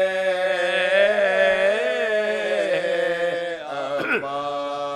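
Several men chanting an Urdu mourning elegy for Husain in unison, unaccompanied, led by an elderly reciter. One long line is held, wavering and falling, then breaks about three and a half seconds in, and the next line starts lower.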